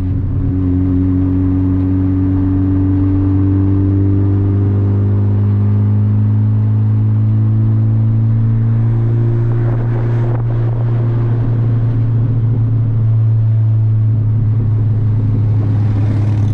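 Turbocharged Honda hatchback's exhaust, with a 2.5-inch downpipe and a mid-dumped Vibrant resonator, droning steadily at constant revs while driving, heard inside the cabin. The tone is loud and low.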